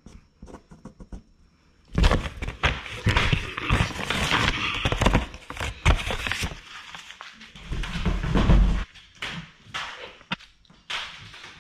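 Brown packing paper crinkling and rustling loudly as a cat pounces and rolls about on it, starting about two seconds in. A heavy low bump comes a couple of seconds later, followed by scattered knocks and taps.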